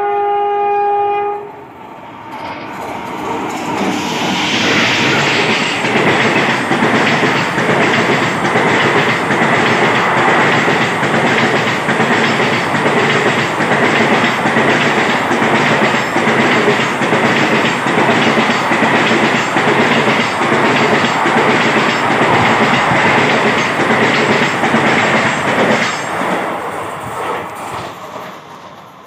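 Locomotive horn sounding a steady chord that stops about a second in. Then a passenger train passes at speed alongside the platform: a loud rush of coaches with steady wheel clatter over the rail joints, fading away near the end.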